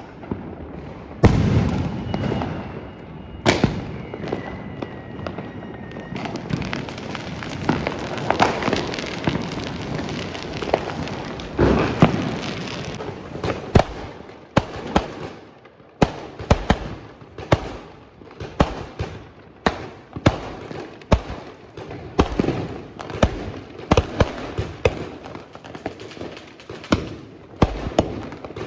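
Diwali firecrackers going off: a few loud separate bangs, then a dense crackling run, then a long string of sharp bangs coming about one to two a second.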